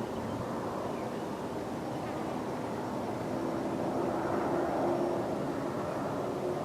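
Steady outdoor background noise with a faint droning hum that grows a little louder about three to four seconds in.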